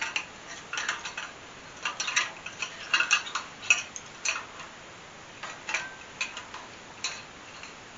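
Pliers clicking and clinking against a light socket and the arm of a steel chandelier: irregular small metallic taps in loose clusters, with a short gap around the middle.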